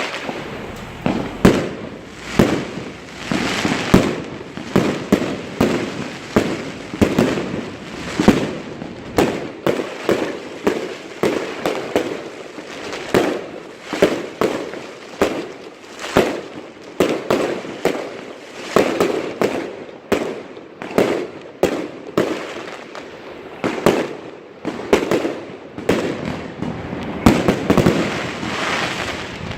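New Year's fireworks and firecrackers going off, a near-continuous run of sharp bangs and pops, one or two a second, with the echoing rumble of distant bursts between them.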